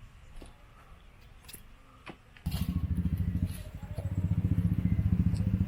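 Faint clicks, then about halfway through an engine starts up suddenly and keeps running with a steady, rapid low chugging.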